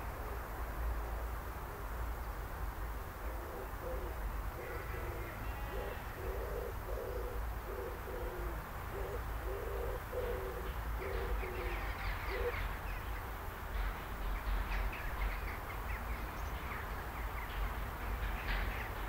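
A pigeon cooing in a run of short, repeated low notes for several seconds, stopping about two-thirds of the way through. Small birds chirp from about halfway on, over a steady low rumble.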